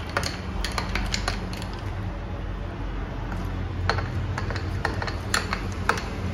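A long metal spoon stirring iced drinks in tall glasses, clinking irregularly against the ice cubes and the glass, over a steady low hum.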